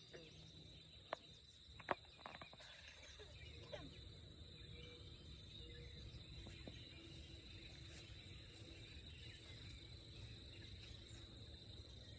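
Quiet lakeside ambience with a steady high-pitched insect drone and a low outdoor hum. Two sharp clicks come about a second and two seconds in, with a few faint ticks after.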